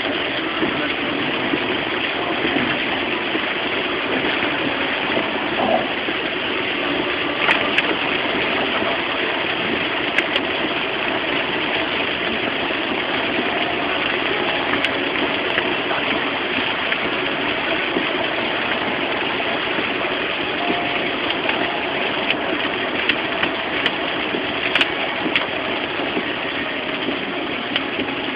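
Heavy rain on a moving car, heard from inside the cabin as a loud, steady hiss mixed with the car's engine and road noise. A few sharp ticks are scattered irregularly through it.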